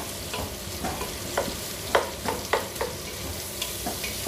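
Pork belly pieces, onion and garlic sizzling as they are sautéed in a stainless steel pot, stirred with a wooden spatula that scrapes and knocks against the pot several times; the loudest knock comes about two seconds in.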